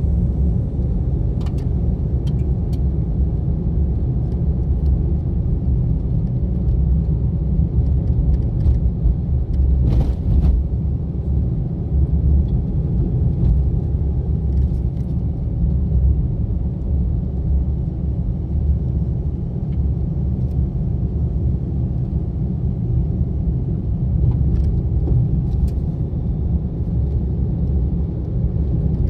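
Car driving along a forest road, picked up by a car-mounted recorder: a steady low rumble of engine and tyres, with a few short knocks and clicks from bumps in the road, the clearest about ten seconds in.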